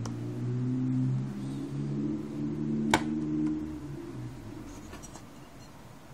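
Hands handling circuit boards and TFT touch-screen panels on a desk, with one sharp click about three seconds in. Under it a low hum changes pitch in steps and dies away after about four seconds.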